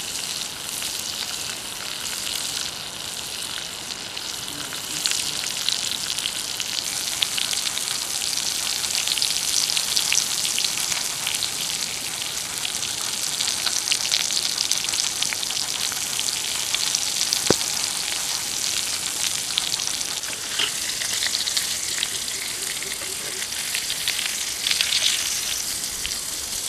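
Pig intestines sizzling on a hot flat stone over a wood fire: a steady frying hiss with fine crackling pops. There is one sharp click about two-thirds of the way through.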